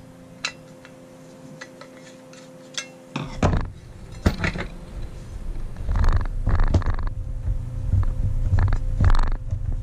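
Clicks, clunks and scraping of a wheel guard being fitted onto the spindle collar of a Metabo W 22-230 MVT angle grinder and worked into place by hand, with the grinder switched off. Light scattered clicks at first, then from about three seconds in heavier knocks and rubbing as the grinder is handled on the bench.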